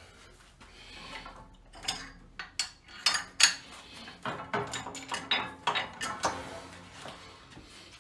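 Cable-machine hardware clanking: a run of sharp metal clicks and clanks, loudest about three and a half seconds in, dying away after about six seconds.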